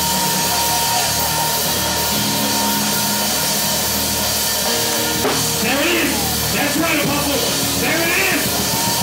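Church band music with a drum kit and sustained keyboard chords, played loudly, with voices crying out over it from about five seconds in.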